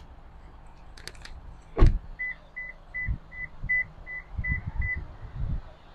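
A few light clicks, then a car door shutting with a thump about two seconds in. It is followed by eight short, high, even beeps at about three a second from the Toyota Highlander.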